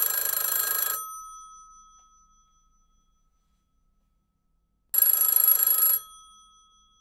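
Telephone bell ringing twice, about five seconds apart, each ring lasting about a second and then dying away.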